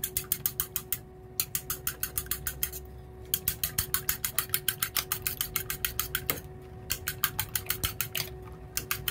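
A fork beating raw eggs in a small stainless-steel bowl: fast, even clicks of metal on metal, about nine strokes a second, with a few short pauses. A steady faint hum runs underneath.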